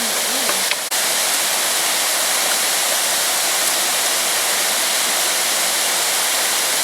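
Steady rushing of the Bear Run waterfall, with a brief break in the sound just under a second in.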